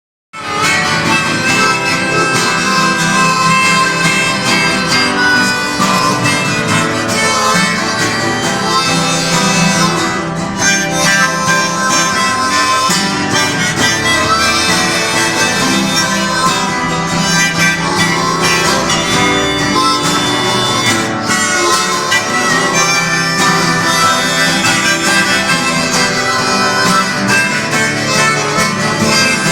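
Instrumental music led by a harmonica, with guitar underneath, starting about half a second in and playing on at a steady level.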